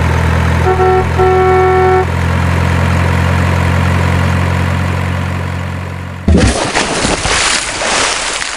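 Heavy truck engine sound running steadily, with a horn honking twice about a second in, a short honk then a longer one. A little over six seconds in the engine stops and a sudden loud splash of water follows as the trucks tip off a plank into a pond.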